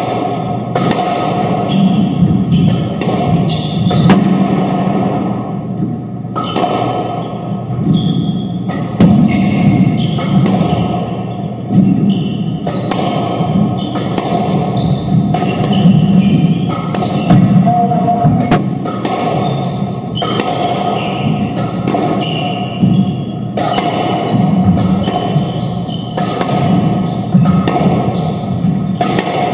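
Doubles squash rally in a reverberant court: a steady run of sharp knocks, about one or two a second, as racquets strike the ball and it smacks off the walls. Short shoe squeaks come from the hardwood floor between the hits.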